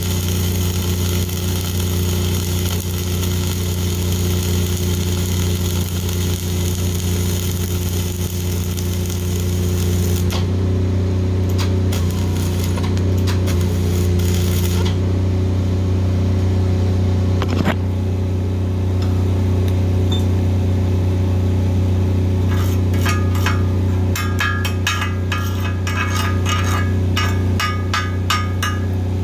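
Self-shielded flux-core arc welding with NR-305 wire: a steady crackling arc hiss over the drone of a Lincoln 305D diesel engine-driven welder. The arc stops about ten seconds in, and near the end comes a quick run of sharp metallic taps, a chipping hammer knocking slag off the weld.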